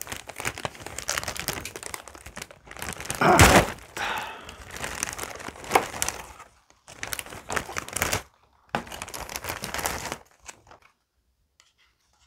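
Thin clear plastic takeout bag crinkling and rustling as it is untied and pulled open off stacked food containers, loudest about three and a half seconds in; the rustling stops a little before the end.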